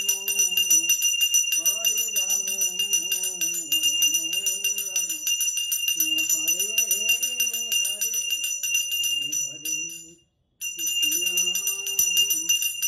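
Small aarti hand bell (ghanti) rung rapidly and continuously, with a voice chanting a devotional tune underneath. Everything cuts out for a moment about ten seconds in, then the ringing and chanting resume.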